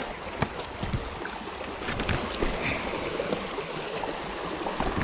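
Creek water flowing steadily, with a few brief knocks in the first two seconds.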